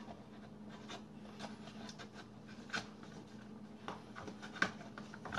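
Cardstock papercraft pieces being handled and fitted together: light rustling, rubbing and scattered small taps, a few sharper ones, over a steady low hum.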